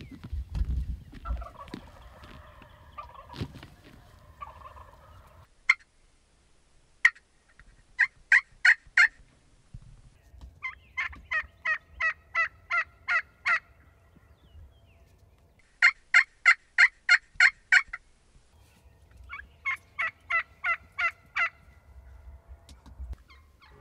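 Wild turkeys calling. It opens with a few seconds of low thumps and soft calls, then two single sharp notes. Four runs of evenly spaced yelps follow, each of about four to eleven notes.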